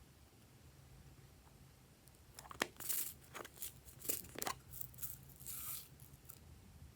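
Glossy slime being worked by hand: after a quiet start, a run of sticky crackling and popping sounds from about two and a half seconds in until just past six seconds.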